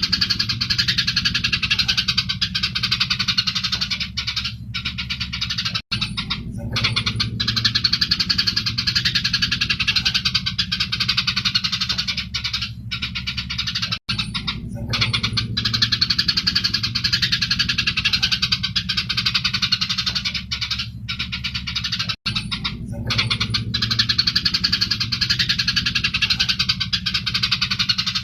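Eurasian tree sparrows chattering in rapid, dense fighting calls, a continuous busy chirping. The short recording loops, repeating about every eight seconds with a brief dropout at each seam, over a low hum.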